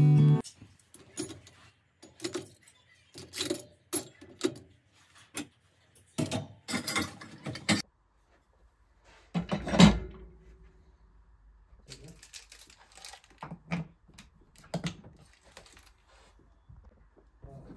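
Metal cutlery and dishes clinking and knocking as they are handled in a kitchen: a string of short clinks, with one louder knock about ten seconds in and lighter clicks after it.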